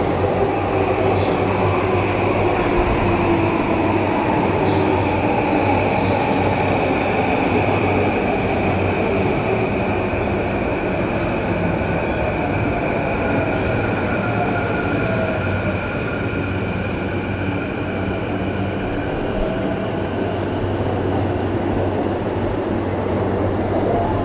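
Electric commuter train running alongside the platform and braking, its motor whine falling slowly in pitch over a steady rumble of wheels on rail.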